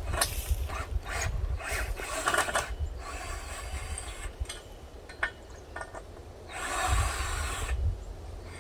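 Metal hardware being worked by hand: a run of short scrapes and clicks, then a longer rasping scrape near the end, over wind rumble on the microphone.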